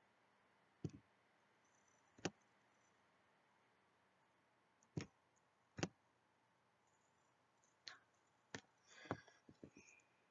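Faint computer mouse clicks over near silence: single sharp clicks a second or more apart, coming closer together near the end.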